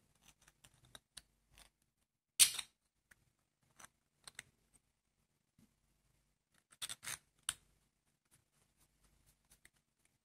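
3D-printed plastic ball-head parts clicking and scraping against each other as they are handled and fitted together, with the printed screw pushed into its hole and turned. One sharp click comes about two and a half seconds in, and a quick run of clicks comes around seven seconds in.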